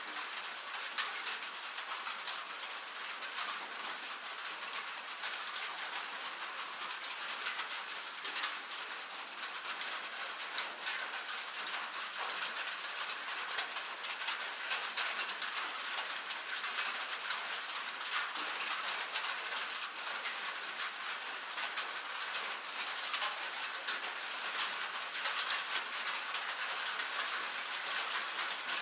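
Steady rain on a metal roof: a dense, even hiss of drops peppered with many sharp little ticks, without pause or change.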